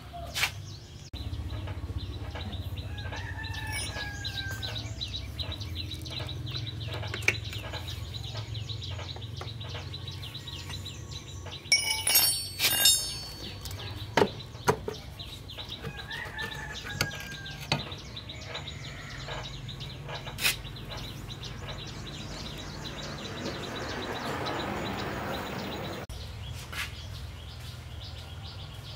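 Chickens calling over a steady low hum, with a quick cluster of sharp clinks near the middle.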